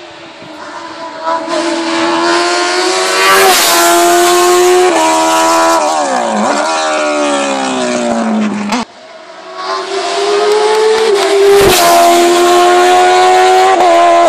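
Race car engine at full throttle climbing the hill, its pitch rising through each gear and dropping at every upshift, easing off and falling briefly in the middle. The sound cuts off suddenly about nine seconds in, and a second car's engine then builds up the same way, climbing through its gears.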